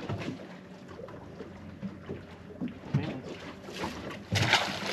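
Small waves slapping against the side of a fishing boat's hull in short uneven knocks, with light wind on the microphone. A louder rushing splash comes near the end.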